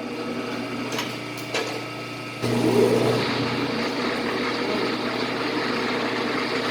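Taiwanese Victor metal lathe running with a steady machine hum. A couple of light clicks come first, then the machine turns louder about two and a half seconds in and runs on steadily.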